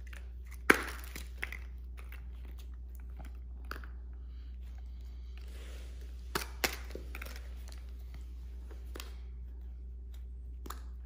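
Plastic Easter eggs being handled and snapped open. There are a few sharp plastic clicks: the loudest comes under a second in, and two more come close together about six and a half seconds in.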